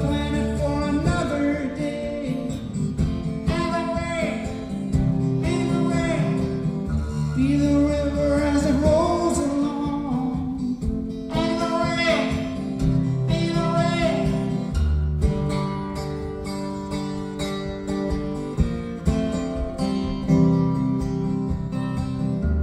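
Live solo acoustic music: a strummed acoustic guitar with singing over it.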